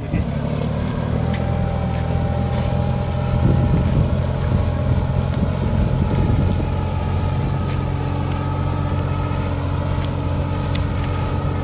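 Farmtrac 26 hp compact tractor's diesel engine running steadily at a constant speed, with a faint steady whine above it. The sound grows a little louder and rougher for a few seconds in the middle.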